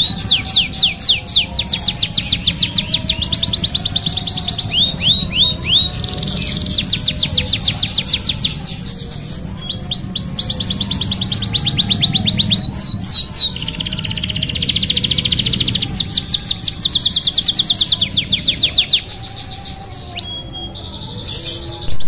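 Domestic canary singing a long song of fast rolling trills: rapid runs of sweeping notes repeated many times a second, changing from run to run, with a brief steady whistled note and a short pause near the end.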